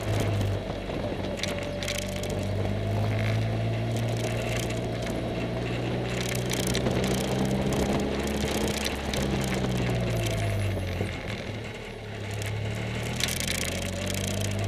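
Caterham Super Seven's engine heard from the open cockpit while driving at low speed, its note steady, then the revs dropping around ten seconds in and climbing again near the end. Light rattling clicks run over it.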